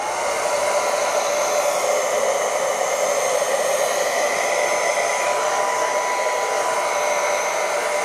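Handheld hair dryer switched up to a faster fan speed. Its motor whine rises right at the start, then it blows steadily.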